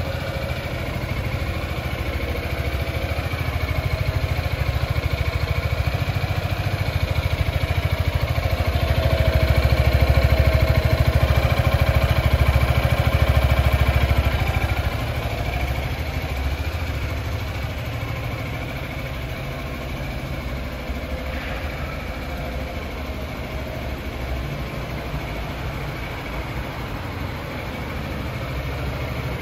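Yamaha XMAX 300 scooter's single-cylinder engine idling steadily, a little louder for several seconds in the middle.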